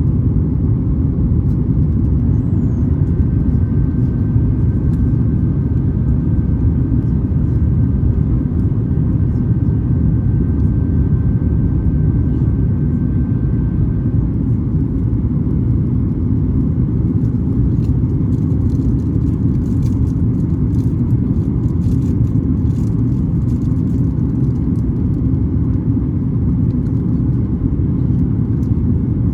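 Steady, loud cabin noise inside a Boeing 737 MAX 8-200 airliner: a deep, even rumble of the jet engines and airflow, with a faint thin whine for several seconds early on.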